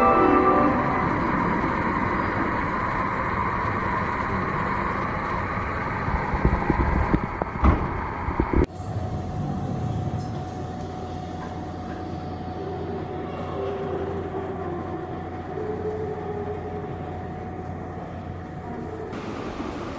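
Cable car station ambience: a steady mechanical rumble and hiss, with a few knocks about seven to eight seconds in. The sound then changes suddenly to a quieter steady hum with a low tone.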